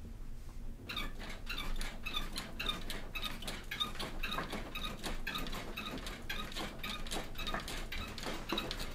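Rhythmic squeaking and tapping, about three to four strokes a second, starting about a second in and keeping on.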